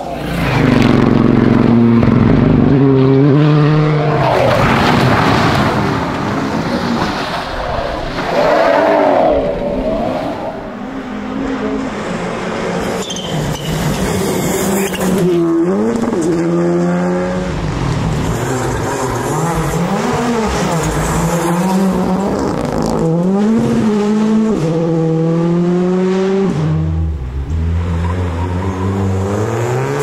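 Rally cars driven flat out on a special stage, one after another. Each engine revs up hard and drops back in steps through quick gear changes as the car passes.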